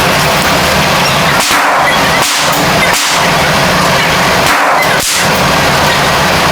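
Gunshots at a shooting range: several sharp reports, spaced irregularly from about a second and a half in, over a steady loud noise.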